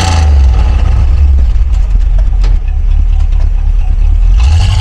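1978 Chevrolet Corvette C3's 350 small-block V8 idling with a deep exhaust rumble, settling from a rev just as it starts and blipped again near the end.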